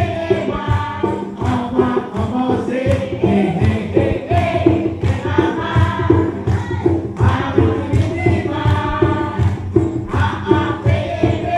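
Church choir singing, many voices together in a steady rhythm, over an even beat.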